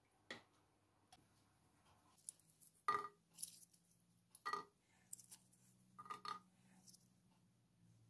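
Walnut halves set down one by one on a ceramic dinner plate: a series of light clinks and taps, each with a brief ring of the plate, the loudest about three seconds in.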